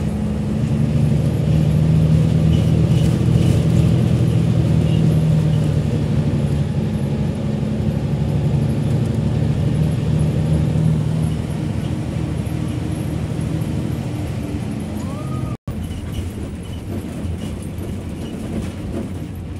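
Bus engine running and road noise, heard from inside the passenger cabin. The engine drone is steady, stronger for the first ten seconds or so and then easing, with a momentary break in the sound near the end.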